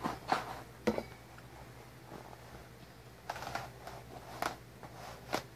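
A few short, scattered clicks and rustles from a product box and its packaging being handled and moved.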